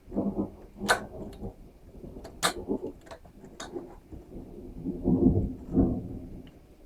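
Clicks and light metallic clinks of hands and tools working a fuel line and hose clamp off a small-engine carburetor, about four sharp clicks over a few seconds, mixed with short low rumbling thumps near the start and again about five seconds in.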